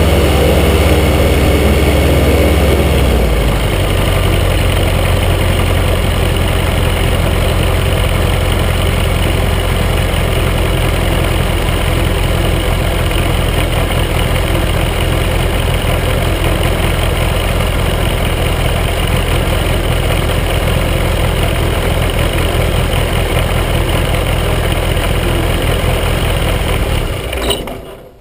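Flexwing microlight's engine and propeller running on the ground, settling to a lower idle about three seconds in, then shut down and running down to a stop near the end.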